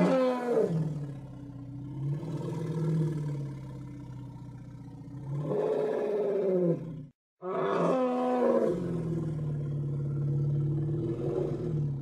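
Sound-effect woolly mammoth crying: long pitched animal calls that slide down from high to a low, held tone. There is a short break about seven seconds in, and then a second falling call.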